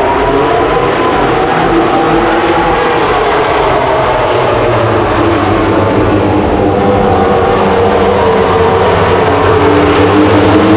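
MotoGP race bikes at full throttle just after the start of the sprint race: many high-revving engines overlapping, their pitches rising and falling, getting louder near the end.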